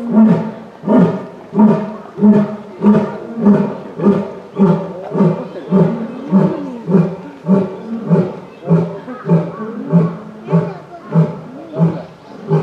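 Male Asiatic lion roaring: a long series of short, deep roars, about two a second, evenly spaced.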